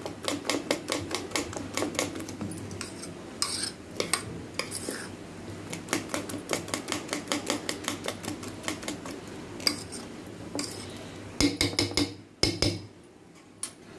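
Steel spoon beating eggs with chopped vegetables in a stainless steel bowl: a quick, steady clinking of the spoon against the bowl. There are a few louder knocks near the end, then it goes quiet.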